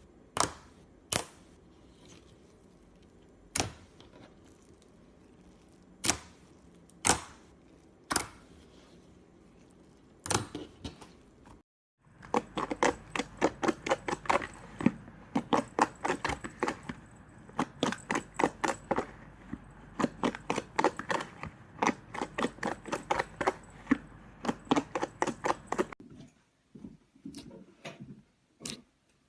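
Slime being pressed and played with: sharp single pops of trapped air, about seven of them spaced a second or more apart, then after a cut a fast run of clicks and crackles, around four or five a second, that stops near the end.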